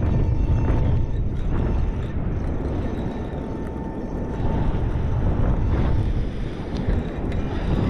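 Wind buffeting the microphone, a loud, uneven low rumble, with a faint thin high tone drifting in and out.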